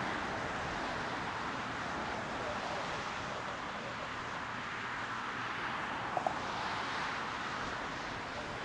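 Road traffic noise: a steady hiss of passing cars that swells and eases, with two short faint beeps about six seconds in.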